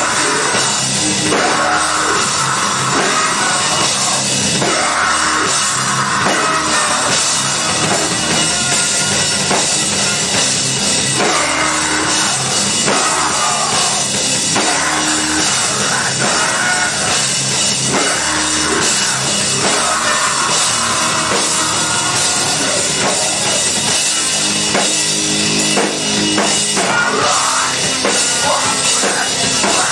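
Live heavy rock band playing at a steady loud level, with electric guitar, bass guitar and drum kit, picked up by a camera microphone in the audience.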